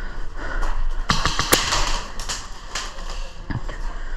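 Airsoft gun firing a quick string of sharp shots about a second in, followed by a few scattered clicks and knocks.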